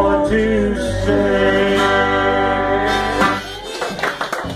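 Acoustic folk trio of two acoustic guitars and an upright double bass, with a man singing, ending a song on a long held final note and chord. The chord dies away, and clapping starts near the end.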